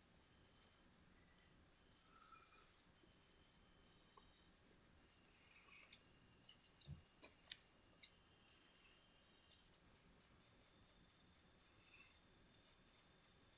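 Pencil scratching on sketchbook paper: faint, quick sketching strokes in runs of several a second as a portrait's layout is roughed out.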